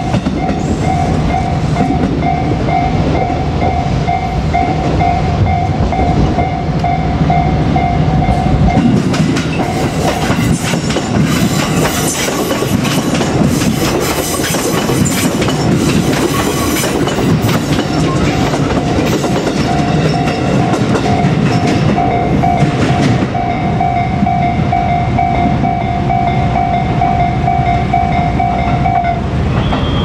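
Level-crossing warning bell ringing in a steady repeating pattern as a JR Kyushu 787 series electric train passes close by. The passing train's wheel and running noise, with clickety-clack over rail joints, drowns the bell from about 9 to 18 seconds in. The bell stops shortly before the end as the crossing clears.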